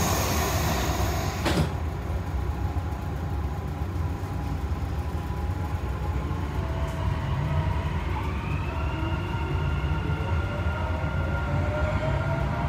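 Dubai Metro train heard from inside the front car: a steady low rumble and a single thump soon after the start. From about two-thirds of the way in, the electric traction motors give a whine that rises in pitch as the train starts off and gathers speed.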